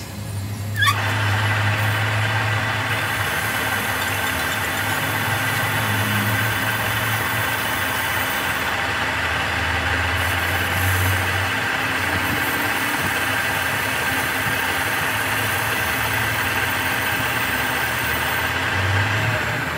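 Metal lathe facing a large disc-shaped gear blank with a brazed carbide-tipped tool: a steady cutting hiss with a thin high tone over the lathe's low hum, starting about a second in as the tool bites.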